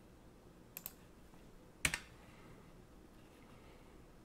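A few clicks of computer keys: a quick faint pair about a second in, then one sharper click about two seconds in, over low room tone.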